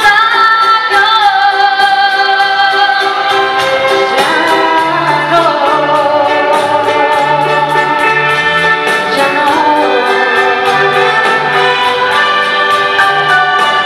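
A woman singing a slow ballad over a full symphony orchestra, with sustained string chords and a pattern of low bass notes beneath the melody.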